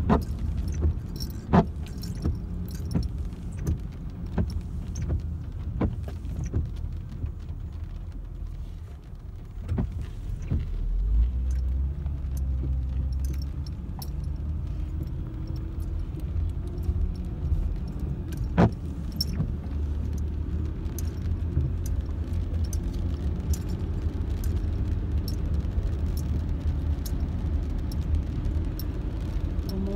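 Car cabin sound while driving on a wet road: a steady low rumble of engine and tyres that grows stronger about a third of the way in, with scattered sharp ticks, most of them in the first few seconds.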